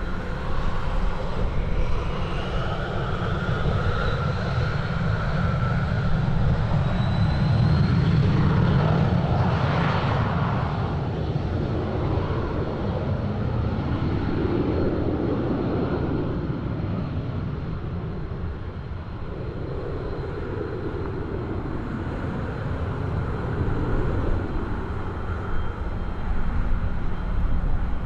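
Fixed-wing aircraft engines running loud, swelling to a peak about eight to ten seconds in as the aircraft passes, with a high whine gliding upward in pitch during the first seconds.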